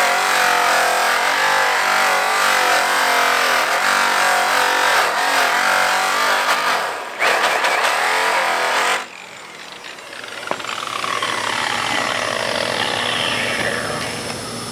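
Electric angle grinder spinning a buffing wheel against an aluminum truck wheel, cutting its center and back wall with the first, coarse polish. The motor runs with a pitch that wavers as it loads against the metal, then cuts off sharply about nine seconds in. A fainter whine follows, rising and falling in pitch near the end.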